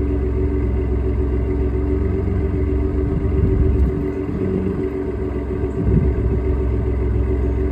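Ford F-150 EcoBoost twin-turbo V6 running with a steady drone, unsettled for a few seconds midway before settling back.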